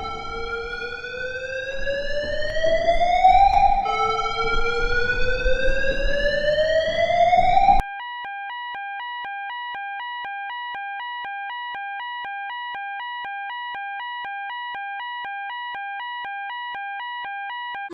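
A fire alarm's evacuation tone sweeping upward again and again, each rise lasting about three and a half seconds, over room noise. About eight seconds in it cuts off suddenly to an electronic emergency alert tone that switches rapidly back and forth between two pitches.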